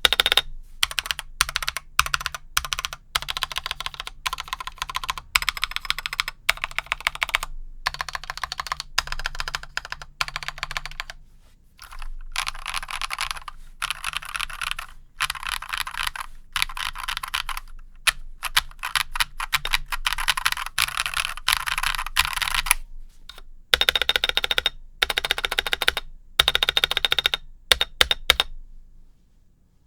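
Typing on a stock Akko x Monsgeek MG108 full-size mechanical keyboard fitted with Akko Cream Yellow linear switches: rapid key clacks in runs with brief pauses, stopping shortly before the end.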